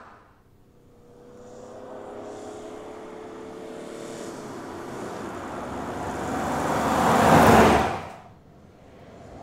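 A Škoda Fabia Combi approaching along the road and passing close by: a steady engine hum and tyre noise build gradually, peak about seven and a half seconds in, then cut off suddenly.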